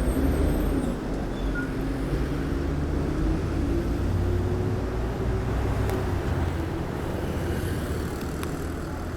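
Heavy city street traffic: a steady low rumble of vehicle engines, with one engine's hum rising slowly over the first few seconds.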